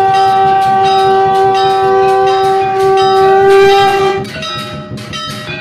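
Conch shell (shankh) blown in one long steady note that stops about four seconds in. Throughout, a temple bell is rung rapidly and repeatedly, and it keeps ringing after the conch falls silent.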